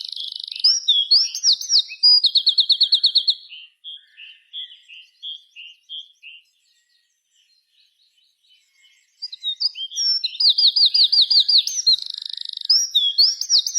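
Small birds chirping in fast runs of sharp, repeated high notes. In the middle, a softer run of slower single notes fades into a brief lull, then the rapid chirping starts again.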